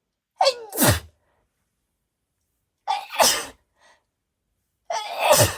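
A woman sneezing three times, about two and a half seconds apart, each sneeze a short voiced intake sliding down in pitch followed by a loud burst. These are allergy sneezes, set off by the scent of roses.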